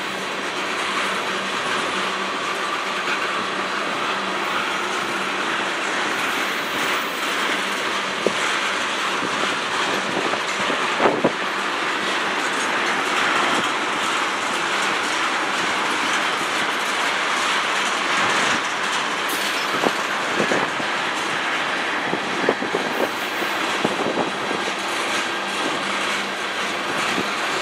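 Freight train of covered hoppers and tank cars rolling past: steady rumble and hiss of steel wheels on rail, with clicks and knocks as the wheels cross the rail joints, a few of them sharper partway through and near the end.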